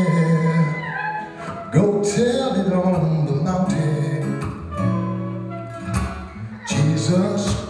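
Live acoustic guitar music: strummed chords and held notes, with a sharp strum about two seconds in and another near the end.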